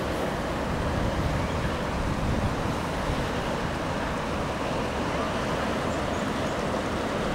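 Wind buffeting the microphone over a steady rushing hiss, with no distinct events.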